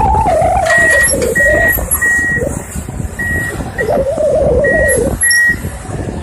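A heavy diesel excavator or dump truck runs with a deep rumble and a wavering whine. Over it a backup alarm sounds short, high beeps at an even pitch, in two runs with a pause between them.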